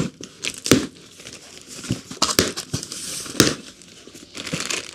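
Packaging crinkling and rustling as a packet of small rack-mounting hardware is handled, with scattered sharp clicks.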